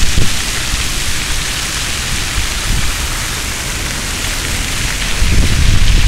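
Ground-level plaza fountain jets spraying and splashing onto wet paving: a steady hiss of falling water. Wind buffets the microphone briefly at the start and again, louder, from about five seconds in.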